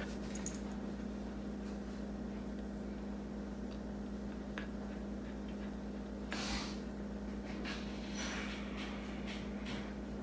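A steady low background hum, with two short breathy bursts of noise about six and eight seconds in.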